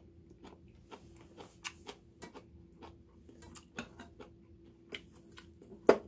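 Metal spoon clinking and scraping against a stainless-steel rice bowl as rice is scooped and mixed, in scattered light clicks and taps with one sharper clink near the end.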